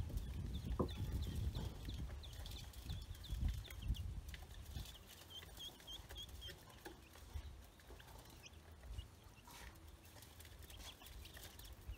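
Chicks and ducklings peeping: rapid strings of short, high peeps. Low thuds and rumbling are loudest in the first few seconds.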